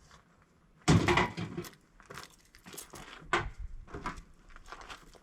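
Scrap parts being handled and sorted by hand: a sudden clatter about a second in, then scattered knocks, clinks and rustling.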